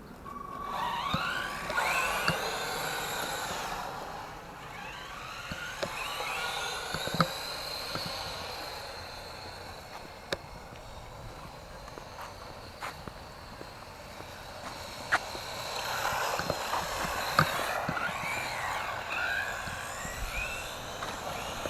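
Electric motors of two S912 remote-control monster trucks whining, rising and falling in pitch as they speed up and slow down, with scattered clicks and knocks from the trucks running over the ground.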